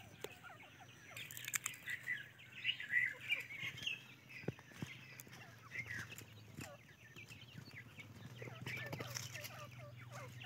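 Young teetar (partridge) chicks chirping and peeping: many short calls, busiest in the first few seconds, over a faint steady low hum.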